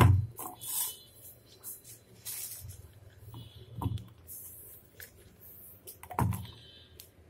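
Pieces of ginger and green chilli dropped by hand into an empty stainless steel mixer-grinder jar: a few separate knocks and clatters against the metal, the loudest right at the start, others about four and six seconds in.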